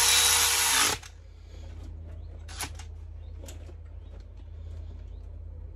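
Power ratchet running for about a second as it winds a bolt in, then stopping. After that only a faint low hum and a few light clicks.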